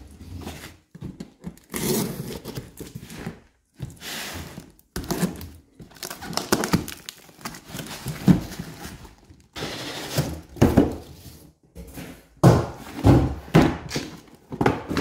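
Cardboard boxes being handled and opened, with irregular rustling and scraping and dull knocks.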